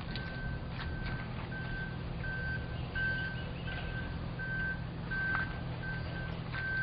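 An electronic alarm beeper sounding one steady high tone, repeating about one and a half times a second, over a steady low machinery hum.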